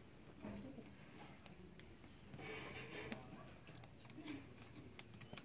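Quiet room with the faint rustle of a clear plastic acetate sheet being lifted and handled, a few light taps, and faint voices in the background.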